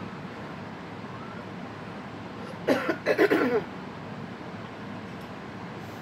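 A woman coughing and clearing her throat for about a second, around three seconds in.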